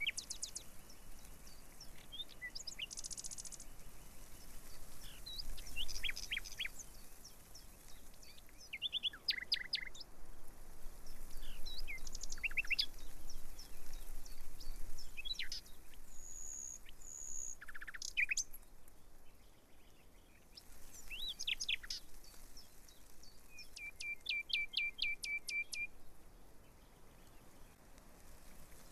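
Small birds chirping and calling: scattered short chirps and quick downward sweeps, with a rapid trill of about a dozen notes about three-quarters of the way through.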